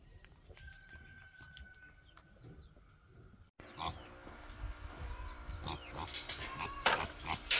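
Farm animals calling, with several short pitched calls and knocks. The calls come in suddenly about halfway through, after a faint, quiet first half.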